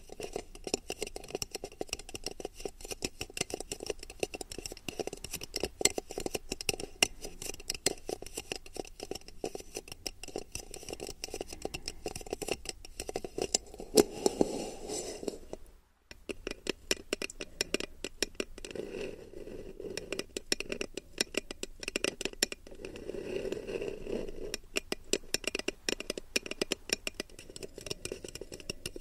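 Fingertips tapping and flicking on an ASMR ear-shaped microphone: a dense stream of quick, irregular clicks over a soft low rubbing sound, cut off briefly about halfway through.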